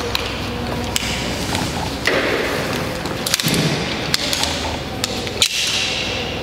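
Metal rope-access hardware (carabiners and a rope device) clicking and clanking as it is handled, several sharp clicks, the loudest near the end, over a steady low hum.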